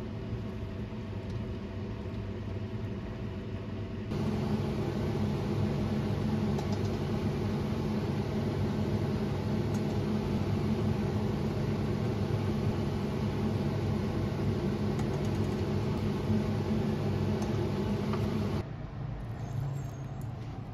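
Steady mechanical hum from a running appliance motor, a low pitched drone with noise above it. It gets louder about four seconds in and drops back sharply near the end.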